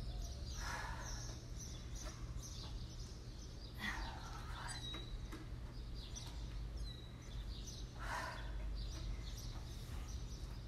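Three short, forceful exhales spaced about four seconds apart, the breathing of a person doing lunges on a balance board, over a low steady hum.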